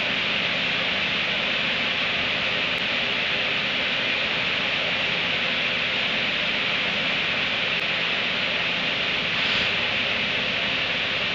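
Steady, even hiss with no breaks or rhythm, swelling slightly about nine and a half seconds in.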